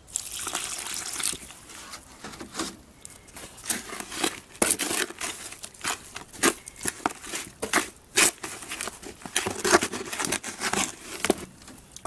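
Water pouring into a plastic tub of dry Portland cement and sand for about a second, then a metal hand trowel scraping and stirring the wet cement mix against the tub in many short, irregular strokes.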